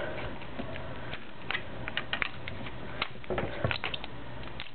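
Small clicks and taps of a Zero-G Beyblade's parts and its plastic assembly tool being worked by hand, coming in a few quick clusters, the busiest a little past three seconds in.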